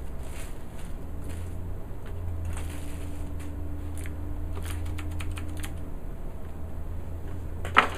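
Cherry MX Blue switches on a mechanical keyboard being pressed by hand: scattered, irregular key clicks, with one louder clack near the end, over a steady low hum.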